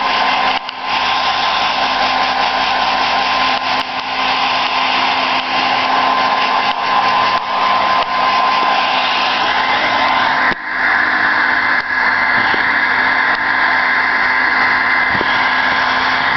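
Hair dryer running steadily while drying a dog's wet coat; about ten seconds in its pitch steps up suddenly to a higher whine.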